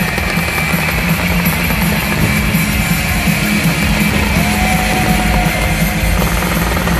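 Loud music with a steady beat, over a dense continuous wash of sound.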